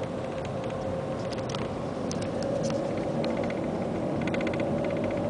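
Cabin noise of the Shanghai Maglev train running at speed: a steady rushing hum with a faint tone that slowly rises in pitch as the train gathers speed, and some faint rapid ticking near the end.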